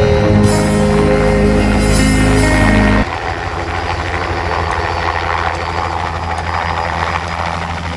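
Background music for about three seconds, then it cuts off and a small two-bladed helicopter is heard flying low on its approach to land, with steady rotor and engine noise.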